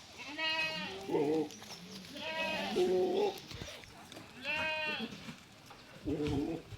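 Beetal goats bleating: three high, arching bleats about two seconds apart, with lower calls from other goats between them and near the end.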